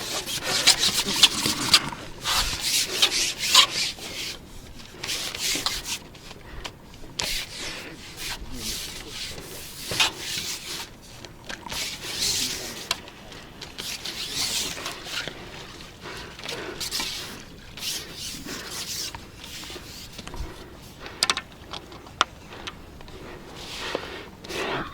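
Irregular rubbing and scraping noises in short strokes, each lasting about a second or two, loudest in the first few seconds.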